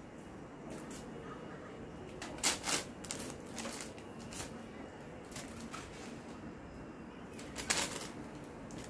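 A cat pawing and shifting about in a fabric mesh laundry hamper full of clothes: a few brief rustles and scratchy swishes, loudest about two and a half seconds in and again near the end.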